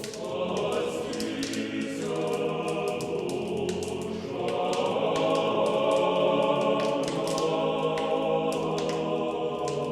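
Choir singing slow, held chords that change every couple of seconds, as music over the programme's ending.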